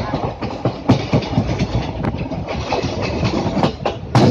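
Train wheels clattering over the rails, heard from inside a moving passenger coach: a steady rumble with frequent sharp clicks, and a louder rush of clatter near the end.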